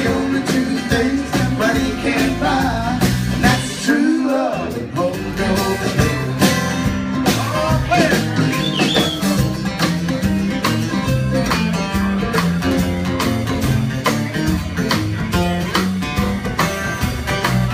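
Live acoustic string band playing an instrumental break in country-bluegrass style: strummed acoustic guitar, plucked upright bass and mandolin picking. The bass drops out briefly about four seconds in.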